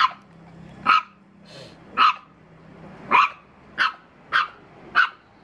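Puppy barking: about seven short, sharp, high-pitched barks, roughly one a second at first, then coming faster after about three seconds.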